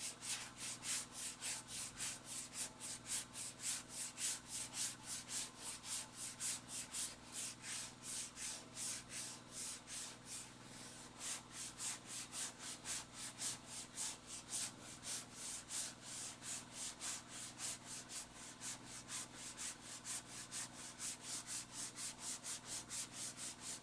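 80-grit sandpaper on a DuraBlock hand sanding block rasping back and forth over cured epoxy fairing compound (System3 Quikfair), in steady strokes about three a second. The work is fairing out filled defects.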